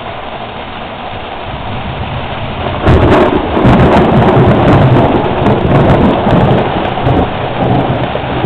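Squall of wind and rain on a moored sailboat. About three seconds in, a strong gust makes it much louder, rumbling and buffeting the microphone.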